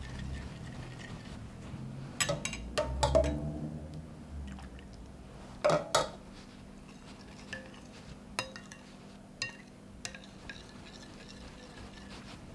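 Metal spoon stirring a thin egg-and-flour mixture in a white ceramic bowl, clinking and scraping against the china at irregular moments, with short ringing after the sharper clinks. The loudest clinks come about two to three seconds in and at about six seconds.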